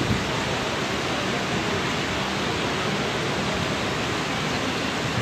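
Steady, even hiss with no distinct events: constant background noise under a tent.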